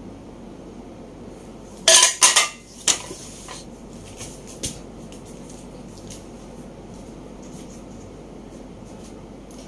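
Small loose metal assembly hardware, screws, washers and hex keys, clattering together as it is handled, with a quick run of sharp clinks about two seconds in, another a second later and a faint one after that.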